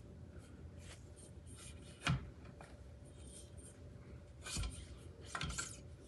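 Metal handrail tube being slid down over a mini trampoline's steel leg, scraping and rubbing, with one sharp knock about two seconds in and more scraping near the end.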